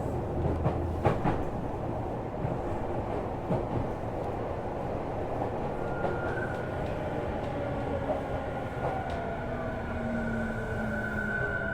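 Tokyu 5000 series electric train running, its wheels rumbling on the rails with a few sharp rail-joint clicks. About halfway through, the Hitachi IGBT VVVF inverter and traction motors start to whine: a steady high tone with lower motor tones shifting beneath it.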